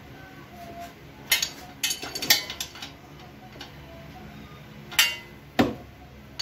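Sharp, irregular metallic clicks and clinks of a wrench working a tricycle's chain adjuster nut as the chain is tightened: a quick cluster of clicks, then two more near the end.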